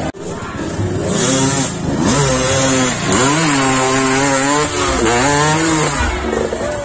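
Dirt bike engine revving hard as it climbs a steep muddy slope. The revs rise and fall several times, then drop away near the end.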